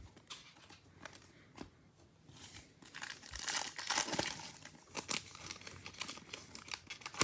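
Foil wrapper of a Panini Phoenix football card pack crinkling as it is handled for opening, starting about three seconds in after a few faint clicks.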